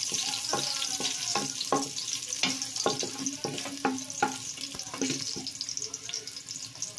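Minced garlic sizzling in hot oil in a stainless steel pot, with a wooden spatula scraping and knocking against the pot, each knock ringing briefly off the metal. The stirring stops about five seconds in, leaving the sizzle.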